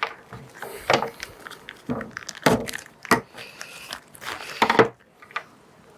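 A series of sharp clinks and knocks with some rustling in between: hands handling a motorcycle fork leg and its small metal drain-bolt parts.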